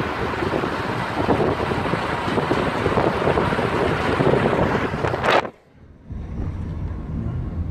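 Wind buffeting a phone's microphone held at a moving car's window, mixed with road noise. About five seconds in it cuts off abruptly. A moment later a quieter, steady low hum of the car's cabin takes over.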